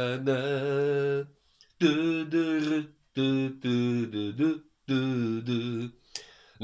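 A man's voice singing unaccompanied in four long held phrases with a slight waver in pitch, with short pauses for breath between them.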